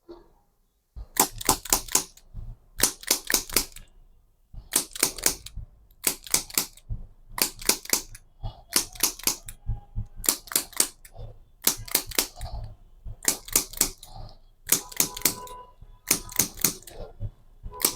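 Rapid percussive tapping on a patient's body during chiropractic treatment: sharp taps in quick bursts of four or five, repeating about once a second, starting about a second in.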